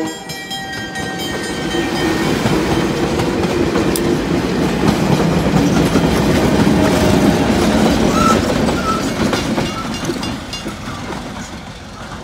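Diesel-hauled passenger train passing close by at a level crossing: a steady rumble of wheels on rail with frequent clicks over the rail joints. The locomotive at the rear goes by about halfway through, when it is loudest, and then the train fades as it moves away.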